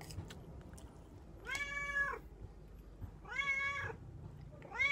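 Domestic cat meowing three times, each one drawn-out meow about a second and a half apart, the last starting near the end; a cat begging for food at a meal.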